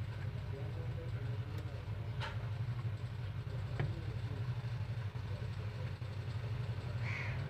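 Steady low mechanical hum, with a few light clicks about two and four seconds in and a short higher squeak near the end.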